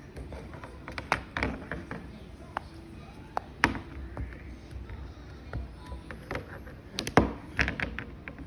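Fidget toy being handled and played with: irregular clicks and taps, with a cluster of sharper clicks about seven seconds in.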